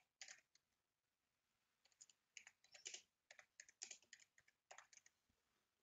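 Faint typing on a computer keyboard: a few keystrokes, a pause of about a second, then a quick run of keystrokes lasting about three seconds.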